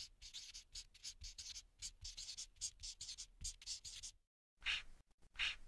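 Faint scratching of a marker pen writing: many quick short strokes for about four seconds, a brief pause, then two longer strokes near the end.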